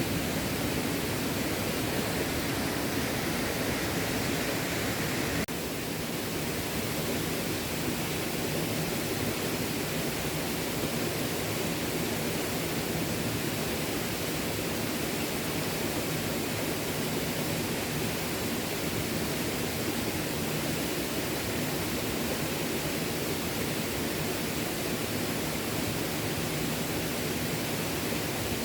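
A small stream flowing: a steady rush of running water, with a slight step down in level about five seconds in.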